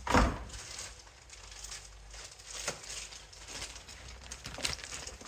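Laptop packaging being handled and opened: irregular rustling and light clicks, with a single louder knock right at the start.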